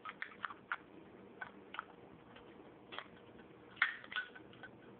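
Light, irregular metal clicks and taps from a Zippo lighter being handled as its insert is fitted back into the case, about a dozen clicks with the loudest near the end.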